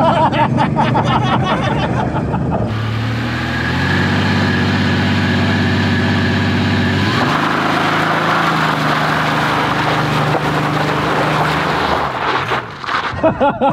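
Nitrous-fed minivan engine held at steady high revs during a burnout attempt, a flat, even engine note. About seven seconds in it drops to a lower steady note and a rushing noise joins in.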